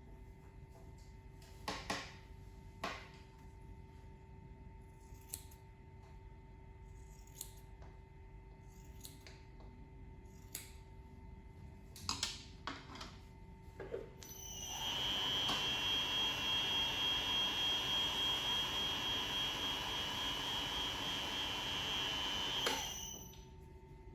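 Double Cut DC 70 double-face fabric splitting machine: a few light handling clicks, then about halfway in the rotating blade machine runs for some eight seconds with a steady high whine, splitting the soft cashmere wool, and stops abruptly.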